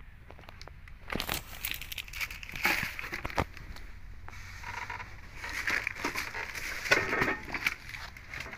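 Plastic packaging crinkling and rustling, with irregular crackles that come and go in clusters.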